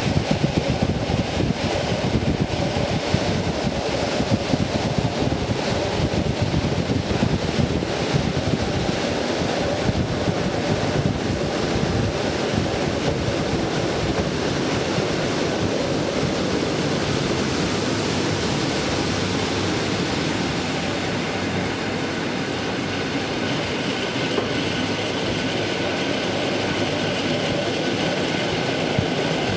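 EN57 electric multiple unit running at speed, heard from on board: a steady rumble of wheels on rail, with rapid clicks and knocks through the first half that smooth out later. A faint steady high tone joins in during the last several seconds.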